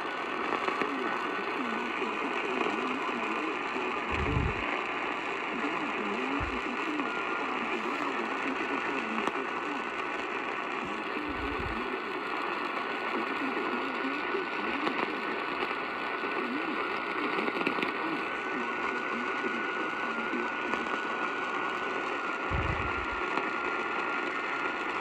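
Radio receiver static: a steady hiss with a thin, steady high whine running through it and a faint, garbled murmur in the noise. Four short low thumps break in, about 4, 6, 12 and 22 seconds in.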